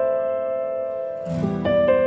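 Slow, soft piano music: a held chord dies away, then about a second and a quarter in a brief swish comes in with a low bass note and the melody picks up again.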